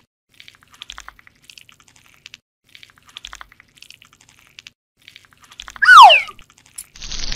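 ASMR sound effects for a skin-treatment animation: soft scattered clicking and crackling, then a loud tone about six seconds in that slides quickly down in pitch, and a rush of noise starting near the end.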